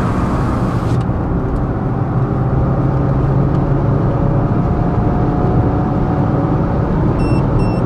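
Citroën C4's 1.6 VTi four-cylinder petrol engine pulling hard under acceleration, heard from inside the cabin over road noise, its pitch rising slowly. Near the end a speed-alert box starts beeping rapidly, warning that the speed limit is exceeded.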